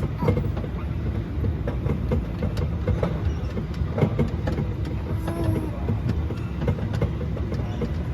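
Small mall ride train running, its cars rumbling with frequent rattles and clacks.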